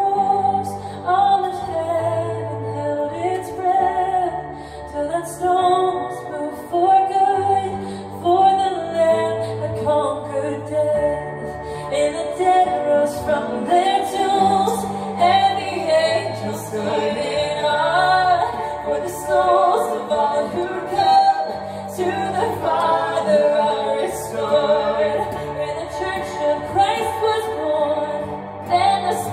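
Worship music: a woman singing over instrumental backing with held bass notes.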